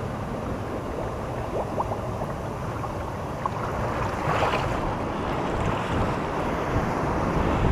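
Sea waves washing in at the shoreline, a steady rushing that swells a little midway, with wind buffeting the microphone.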